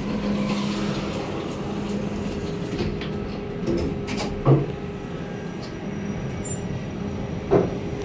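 Kone EcoDisc traction lift car travelling down, a steady hum with a constant tone. A few light clicks and rattles come through, with a short knock about four and a half seconds in and another near the end.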